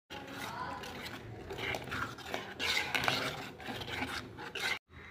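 Steel spoon stirring milky sago pudding in a metal pot, scraping and clinking against the pot's bottom and sides as the sugar is stirred in. The sound cuts off suddenly near the end.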